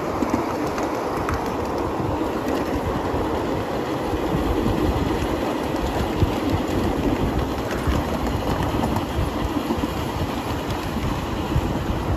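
Steel wheels of a long 7.5-inch gauge live-steam train running over the track, heard from the rear car: a steady rolling noise with occasional clicks from the rails.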